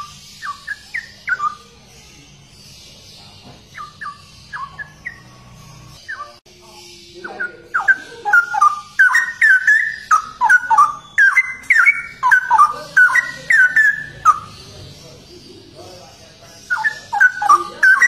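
Straw-headed bulbul (cucak rowo) singing loud, rich whistled phrases. It gives short bursts near the start and again around four seconds in, then a long unbroken run of song from about seven to fourteen seconds, and starts up again just before the end.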